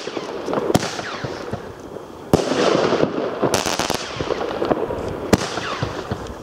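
Lesi Scepter firework shells bursting: a small bang under a second in, a loud bang about two seconds in and another near five seconds in. Dense crackling from the bursting stars fills the gaps between them.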